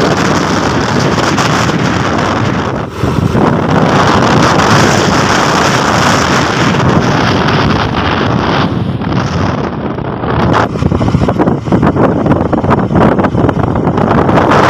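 Loud wind buffeting the microphone of a camera on a moving vehicle, over a steady rush of road noise. It dips briefly about three seconds in and turns gustier and choppier in the second half.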